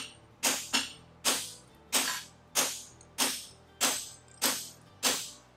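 Hammer blows on a handled fuller set in the crease of an aluminum horseshoe on an anvil, fullering the nail groove: about ten sharp ringing metallic strikes at a steady pace of roughly one and a half a second, with a quick pair at the start.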